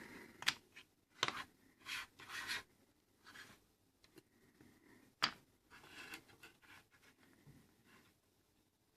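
Flat-blade screwdriver scraping and prying a multimeter's circuit board out of its plastic case, with a few sharp clicks, the sharpest about five seconds in.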